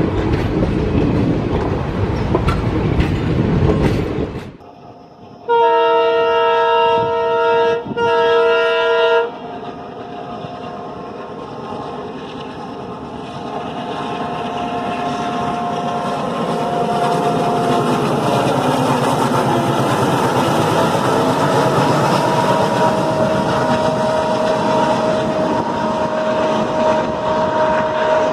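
Indian Railways passenger coaches rushing past close by, wheels clattering on the rail joints; then, after a cut, the two-tone horn of a WDM3D ALCO diesel locomotive sounds twice, followed by its engine running and growing steadily louder as the train approaches, with a faint whine over it.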